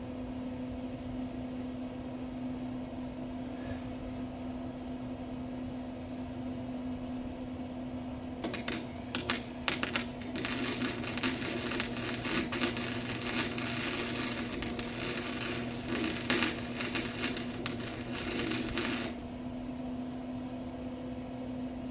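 Welding arc on cattle panel wire: a few short crackling strikes about eight seconds in, then steady dense crackle for about nine seconds that stops abruptly, over a steady hum.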